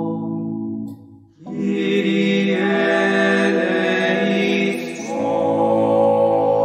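Slow sacred choral music with organ: held chords that break off briefly about a second in, then resume, with a change of chord about five seconds in.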